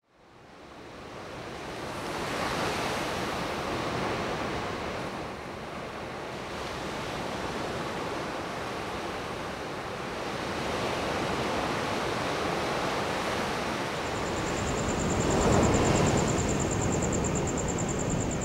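Ocean surf: waves washing in and breaking, fading in from silence over the first couple of seconds. The sound swells and ebbs, with the loudest surge near the end.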